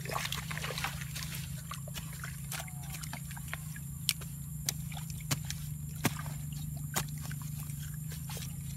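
Hands working water hyacinth plants out of a shallow muddy trench of water: small sloshes and wet handling sounds, with a few sharp clicks spread through, over a steady low hum.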